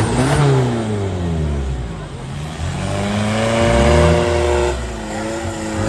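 Modified off-road 4x4 pickup's engine revving hard under load as it climbs a steep dirt bank. The revs fall away over the first two seconds, climb again and hold high, then dip briefly and pick up near the end.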